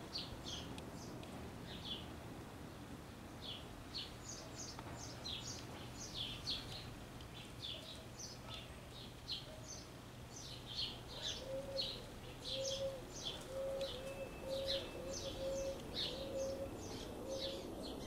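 Several small birds chirping, with short high calls scattered throughout. From about halfway, a low note repeats steadily, about every two-thirds of a second.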